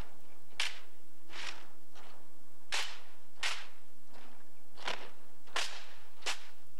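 Hand slaps on the M1 rifles of a drill platoon doing silent manual of arms: seven sharp slaps, unevenly spaced and mostly under a second apart, the slaps the Marines use to keep their count.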